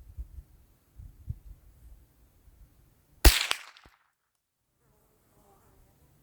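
A single shot from a Ruger 597 rimfire rifle about three seconds in: one sharp crack with a short ringing tail.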